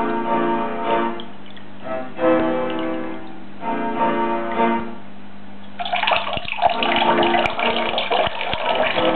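Piano music, then, about six seconds in, a sudden loud rush of gurgling, splashing water with many small glugs as the U siphon of an aquaponics grow bed starts to flow and drain.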